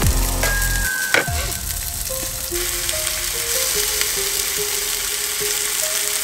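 Floured fish fillet sizzling in oil in a frying pan, a steady hiss with one click about a second in. A soft melody of background music plays over it.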